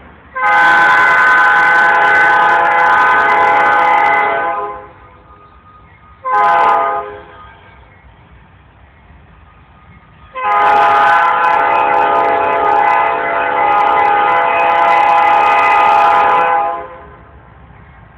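Diesel freight locomotive's air horn sounding for a grade crossing: a long blast, a short blast, then a long held blast, each a loud steady chord.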